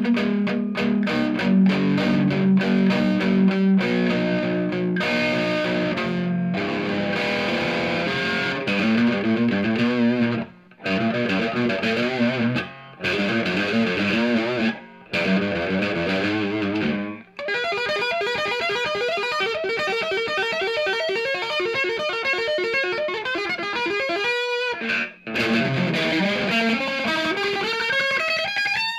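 Overdriven electric guitar with a P90 bridge pickup played through a small tube amp: chugging chords with a few brief stops, then ringing single notes, and a long slide up the neck near the end.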